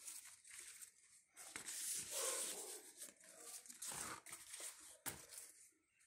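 Faint rustling of plant leaves being handled, with a few soft knocks.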